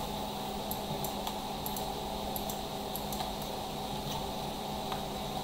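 Faint, irregular clicks of a computer mouse, about a dozen, over a steady low hum of background noise.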